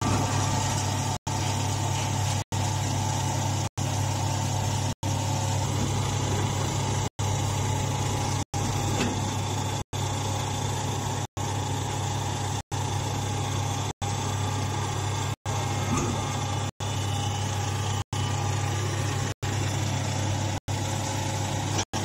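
A vertical hydraulic hay baler's power unit runs steadily, its electric motor and hydraulic pump giving a constant low hum. The sound cuts out for an instant about every second and a quarter.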